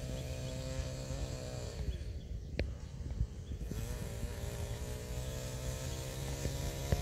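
Distant chainsaw running at high revs, easing off about two seconds in, then revving up again and holding just before the middle. A single sharp click comes between the two runs.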